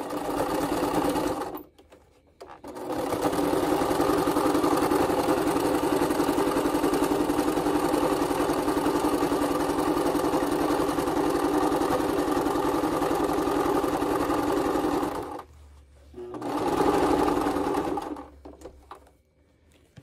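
Electric sewing machine stitching through denim, running in three spells: a short burst at the start, a long steady run of about twelve seconds, and a brief run near the end.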